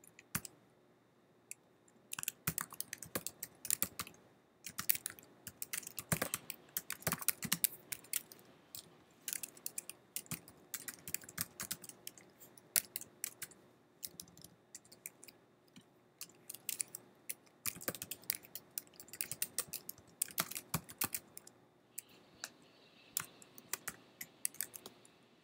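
Typing on a computer keyboard: uneven bursts of rapid keystrokes with short pauses between them.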